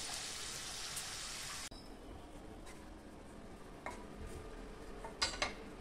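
Corn kernels deep-frying in hot oil, a loud steady sizzle that cuts off abruptly about two seconds in. Then butter melting in a hot iron kadhai gives a fainter sizzle, with a few sharp clicks near the end, the loudest a pair close together.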